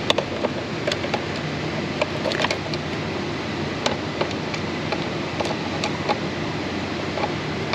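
Scattered light metallic clicks and taps, about a dozen at uneven intervals, as a bolt and tool are fished by hand toward a throttle body bolt hole. A steady hum runs underneath.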